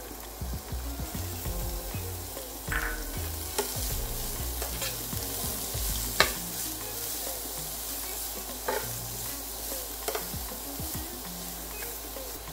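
Chopped carrot, green chilli and ginger sizzling steadily in hot oil in a pan while a spatula stirs them, with scattered scrapes and knocks of the spatula against the pan. The sharpest knock comes about six seconds in.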